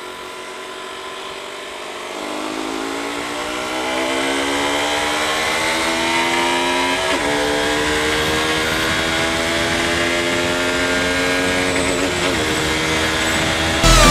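A KTM RC sport motorcycle's engine pulling away and accelerating, its pitch climbing steadily as the bike gathers speed. There are brief hitches in the rise about seven and twelve seconds in.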